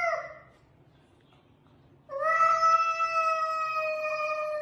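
A cat yowling at another cat. A short yowl fades out at the start, then after about two seconds of quiet comes one long, drawn-out yowl of about three seconds, sinking slightly in pitch.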